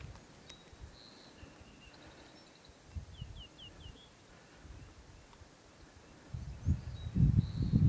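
A small songbird sings a short phrase of four quick downward-slurred notes, twice, with a thin buzzy trill between. A loud low rumble comes in near the end.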